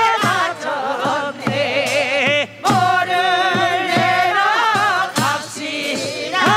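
Korean farming folk song (nongyo) sung with a strong, wavering vibrato over steady beats of a barrel drum.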